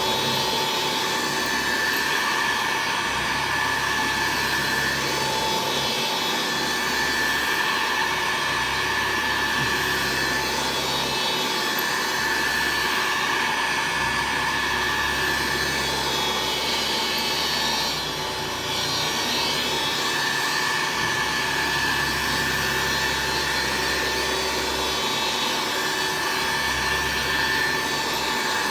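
Upright vacuum cleaner running while vacuuming, a steady motor whine whose high tone fades in and out every few seconds, with a brief drop in level just past the middle.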